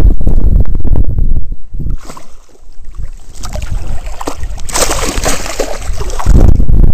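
Wind buffeting the microphone, giving way after about two seconds to water sloshing and splashing right at the microphone as it dips at the surface of shallow water; the wind rumble comes back near the end.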